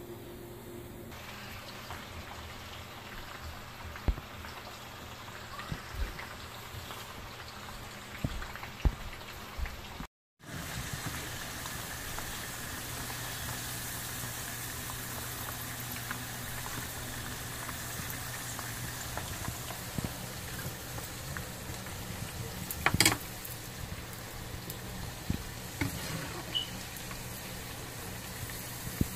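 Chicken and potato chips deep-frying in a pan of hot oil: a steady sizzle and bubbling, with a few sharp clicks of a metal slotted skimmer against the pan. The sound cuts out for a moment about ten seconds in.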